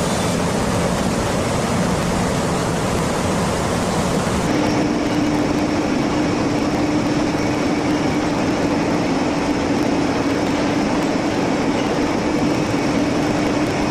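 Steady machinery noise of a car-factory assembly line. About four and a half seconds in it changes abruptly to a duller, lower noise with a steady hum.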